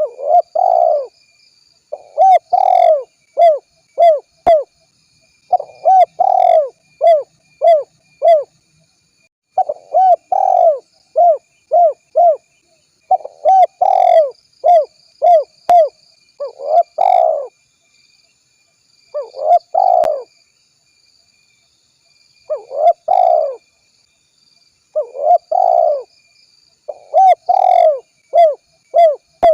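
Spotted dove cooing over and over: phrases of several arched coos, each run lasting one to two seconds, separated by short pauses, in the lively, persistent song used to lure other doves.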